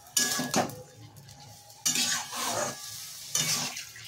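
A spatula stirring and scraping a thick potato and pea mixture around a metal kadai over the heat, in three strokes about a second and a half apart, with the food sizzling.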